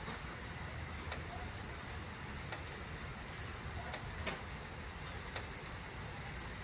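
Outdoor night background after a thunderstorm: a steady low rumble, a faint high steady hiss, and short sharp clicks about once a second, the loudest just after the start. No thunder is heard.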